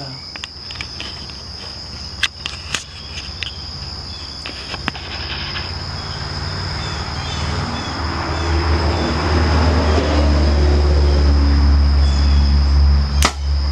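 Insects shrill steadily in one high tone while a low mechanical rumble grows louder through the second half and becomes the loudest sound. Near the end there is a single sharp snap, which fits a compound bow being shot.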